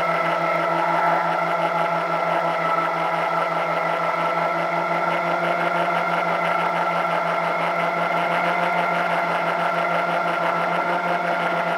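Twin electric motors and propellers of a radio-controlled plane, heard from its onboard camera in flight, running with a steady whine.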